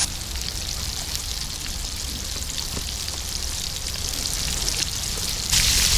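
Breaded catfish pieces deep-frying in hot oil in a cast-iron skillet: a steady crackling sizzle that gets louder about five and a half seconds in.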